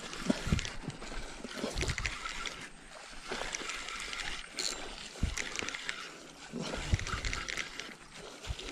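Spinning reel being cranked to bring in line, a rough whirring crackle, with several dull knocks from handling the rod.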